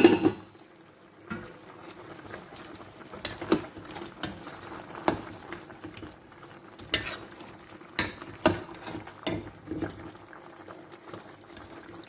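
A metal utensil knocking and scraping against a cooking pot at irregular intervals as cooked beef is stirred, with the liquid simmering underneath.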